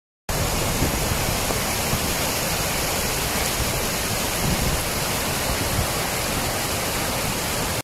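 Muddy floodwater rushing along a street and pouring over a concrete kerb, a loud steady rush of water that starts abruptly after a brief silence.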